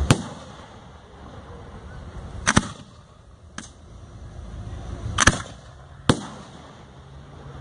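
Aerial display firework shells bursting: a string of sharp bangs, a close pair about two and a half seconds in, a smaller one a second later, and two more near the end.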